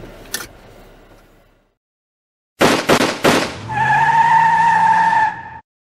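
A short click, then after a pause a logo sound-effect sting: three quick sharp hits, followed by a steady tire squeal over an engine revving slowly upward, cutting off suddenly.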